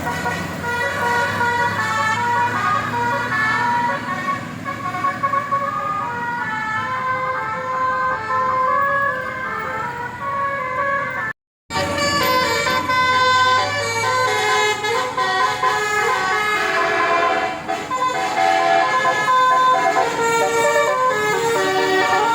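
Telolet 'basuri' multi-tone musical horn playing a quick stepping melody over a low drone, with a brief dropout about halfway through.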